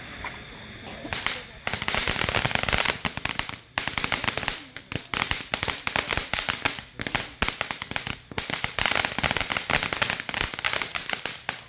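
Fireworks going off in a rapid, dense string of sharp pops and crackles, starting about a second in and continuing with a few brief gaps.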